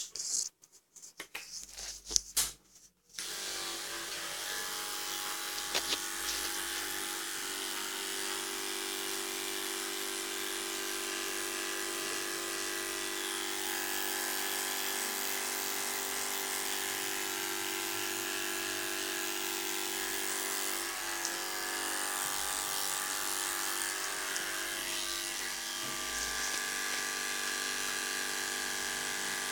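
Electric dog-grooming clipper starting up about three seconds in, then running with a steady hum as it shears a schnauzer's coat.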